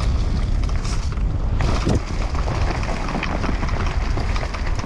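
Mountain bike descending a dirt trail at speed: wind rushing over the action camera's microphone as a steady low rumble, with tyres rolling over dirt and leaves and the bike rattling and clicking over bumps.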